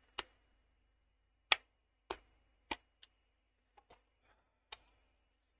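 Irregular sharp plastic clicks and taps from a small power adapter and its cable being handled and fitted together, about eight clicks spread over several seconds, the loudest about one and a half seconds in.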